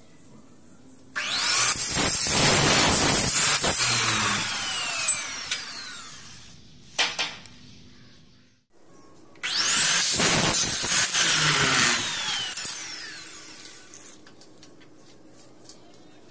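Electric mitre saw cutting aluminium window profile, twice: each time the motor starts suddenly, the blade cuts through the metal with a loud, harsh, high-pitched noise, and the motor winds down with a falling whine. A sharp click comes between the two cuts.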